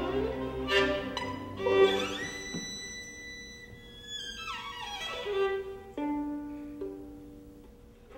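Solo violin playing a virtuosic passage, with the orchestra underneath only at the start. There are quick upward runs to high held notes, a rapid descending run about halfway through, then lower sustained notes that fade away near the end.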